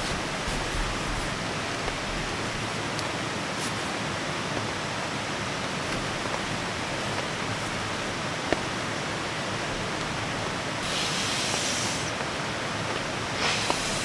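Heavy rain falling steadily on a tent, heard from inside it. Fabric rustles loudly twice in the second half as clothing and bedding are handled.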